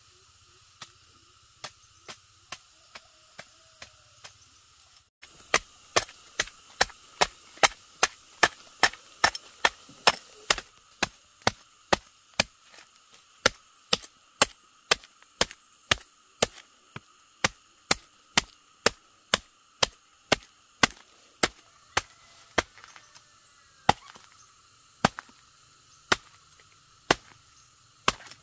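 Machete chopping into the hairy rhizome of a coolie fern (Cibotium barometz) in sharp, single blows. They are light and sparse for the first few seconds, then come hard at about two chops a second, and grow sparser near the end.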